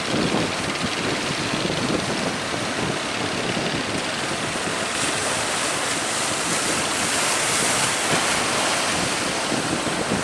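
Rough sea and wind: a steady rushing noise of big waves around a ship, with wind buffeting the microphone.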